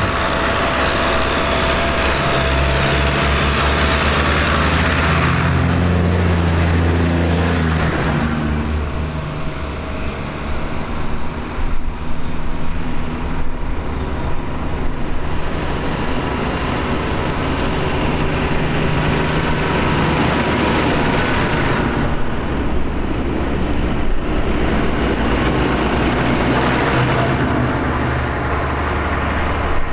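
Farm tractors' diesel engines running as a line of tractors drives past one after another; the engine notes shift in pitch as each one approaches and passes.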